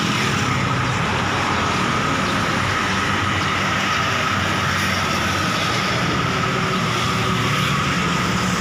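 Steady roadside traffic noise from cars, buses and trucks passing on a highway, with a faint steady whine running through it.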